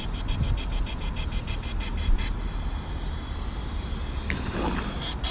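Low wind rumble on the microphone, with a rapid, even ticking of about six a second for the first two seconds that then stops.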